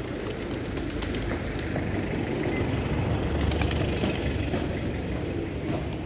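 A flock of feral pigeons on pavement, with flurries of wing flaps and claps as birds take off, about a second in and again around three and a half seconds in, over a steady low rumble.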